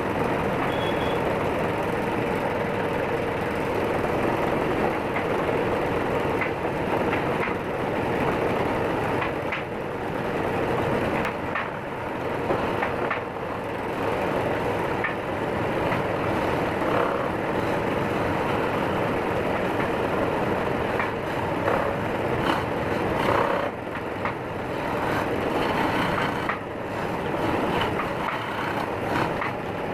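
Wood lathe running steadily, a continuous mechanical drone with a steady hum, broken by scattered short clicks and knocks.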